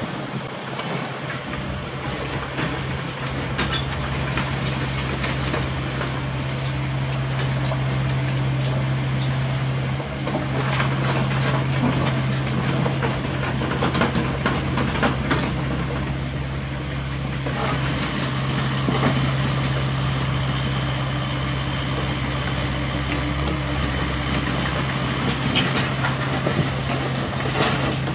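CAT 307E2 mini excavator's diesel engine running steadily under digging load, with scattered clanks and scrapes as the machine works soil.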